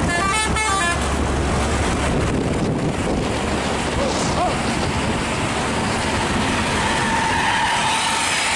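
Hino coach passing close by with its engine and straight 'jet' exhaust running loud. In the first second a multi-tone musical horn plays a run of quick stepped notes and cuts off.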